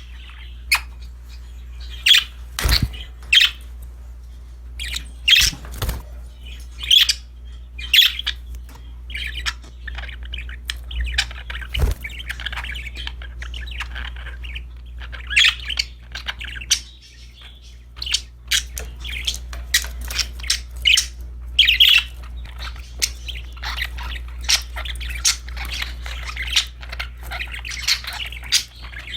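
Budgerigars (budgies) chirping and squawking: sharp calls every second or so, with stretches of soft warbling chatter in between and a few knocks, over a steady low hum.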